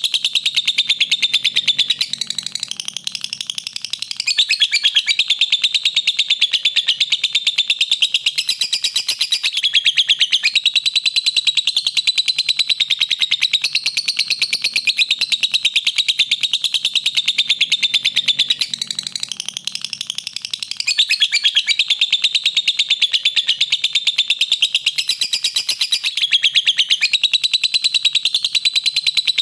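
Lovebird giving a long, unbroken, rapid high-pitched chattering trill that eases for a moment twice before carrying straight on.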